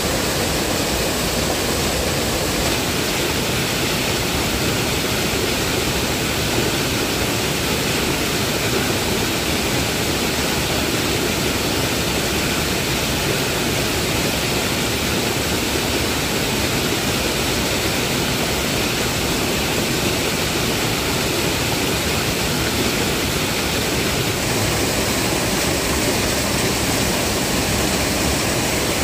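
Small waterfall cascading over rocks into a stream: a loud, steady, unbroken rush of water.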